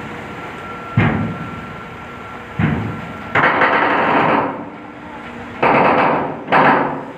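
A ferry's steel bow ramp clanging and scraping against the dock ramp as it is lowered, with the ship heaving in heavy swell: two sharp bangs, then three longer, rougher metal grinding bursts of about a second each. A faint steady whine stops about three seconds in.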